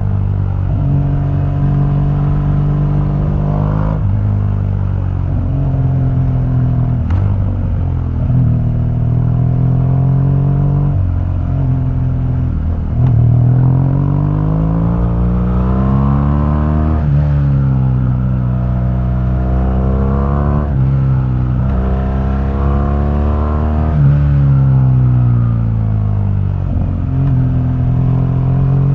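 2015 BMW R1200GS boxer-twin engine through its stock exhaust, under way: the engine note climbs as it accelerates, then drops sharply at each gear change, and falls away as it slows, over and over.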